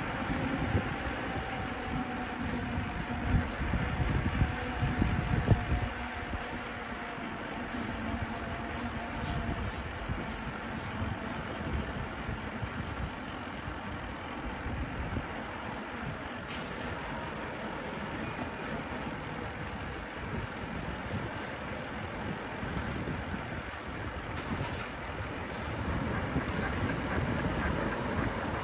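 Bicycle riding along city streets with traffic around: steady rolling and street noise, with a heavier low rumble for the first six seconds or so and a single click about halfway through.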